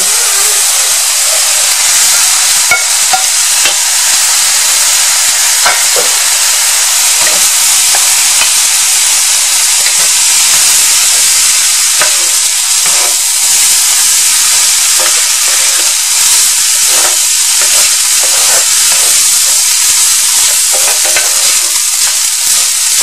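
Steamed rice sizzling steadily in hot oil in a frying pan as it is stirred and tossed with a spatula, with scattered scrapes and taps of the spatula against the pan.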